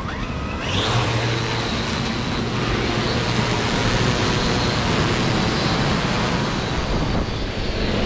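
Quadcopter fishing drone's rotors buzzing steadily as it flies overhead and comes in low over the beach. A short rising whine comes near the start.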